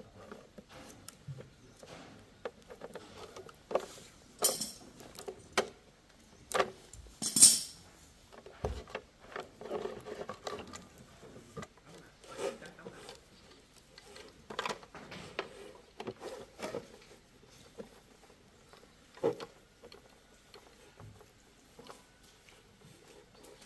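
Scattered clinks, taps and knocks of hand tools and small metal parts being picked up and set down at an irregular pace, the loudest a little over seven seconds in.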